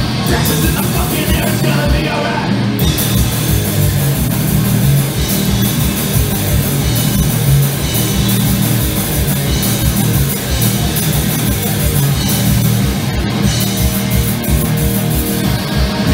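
Three-piece punk rock band playing live: distorted electric guitar, bass guitar and drum kit, loud and dense.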